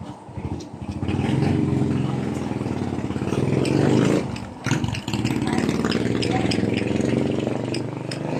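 An engine running close by with a dense, even firing pulse. It grows louder about a second in, drops away briefly around the middle, then picks up again.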